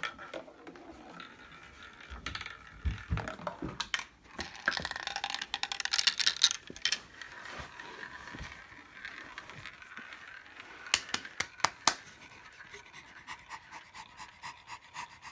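Marbles rolling along a homemade marble run, with a rushing rolling sound and scattered sharp clicks and clacks as they drop and strike the track. There is a longer rolling stretch about a third of the way in, and a quick run of loud clacks about two-thirds of the way through.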